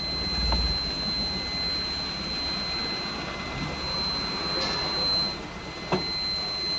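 Small goods truck's engine running at low revs, heard from inside the cab, with a steady high-pitched whine over it. A single sharp click comes near the end.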